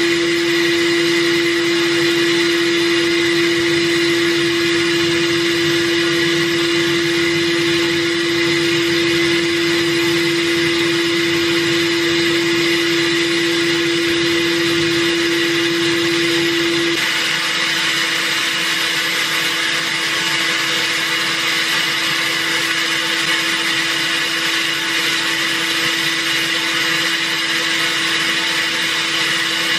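Abrasive blast gun in a sandblasting cabinet blasting a cleaver blade: a loud, steady hiss of compressed air and grit. A steady hum runs underneath and becomes quieter about halfway through.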